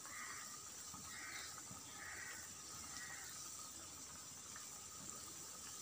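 Potato rings deep-frying in hot oil, a faint steady sizzle. Four short high-pitched sounds come about a second apart in the first three seconds.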